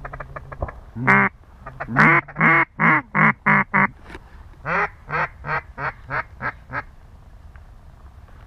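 Mallard quacking: one loud quack about a second in, then a fast run of about seven strong quacks and a second run of about seven that fades away, the falling series of a hen mallard's call.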